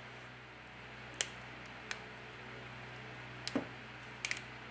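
A few faint, sharp clicks and taps from a partly disassembled smartphone being handled and turned in a gloved hand, over a low steady hum.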